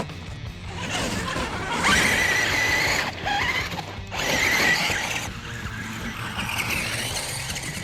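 Background music with a steady beat, with two louder stretches of a high whine about two seconds in and again past the middle.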